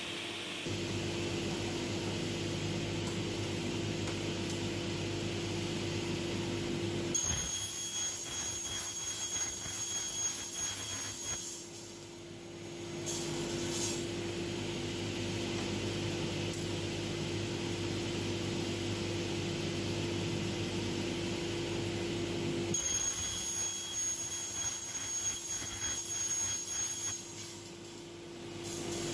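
Sliding-table panel saw running steadily with a constant hum. Twice the blade cuts through the stock, the MDF and PVC pipe being sawn here, each cut adding a high-pitched whine for about four seconds.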